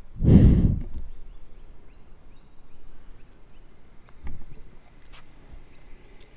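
Railway platform ambience: a brief loud low thud or gust about half a second in and a smaller thump about four seconds in, over faint high chirping.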